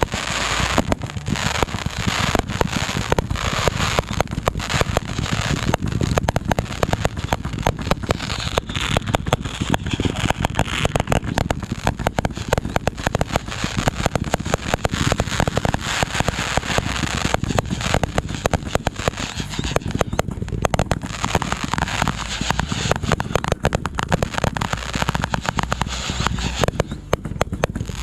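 Fireworks going off: a dense, near-continuous run of sharp cracks and pops, many per second, with a brief thinning about twenty seconds in and again near the end.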